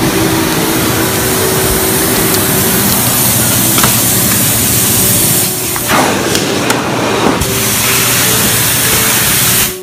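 Water-extraction vacuum pulling standing water off a floor through a large hose: a loud, steady rushing hiss of air and water being sucked in. Its tone thins for a couple of seconds past the middle, and there are a few light knocks.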